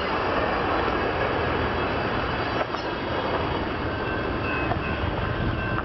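Amtrak Superliner passenger cars of the Empire Builder rolling past on the rails, a steady, even rumble of wheels and cars going by.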